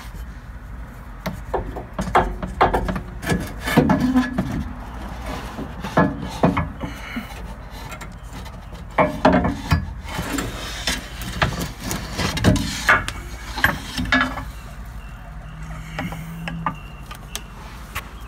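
Irregular knocks, clunks and rubbing as the old rear shock absorber of a 2012 Honda Pilot is worked loose by hand and pulled out of its mount.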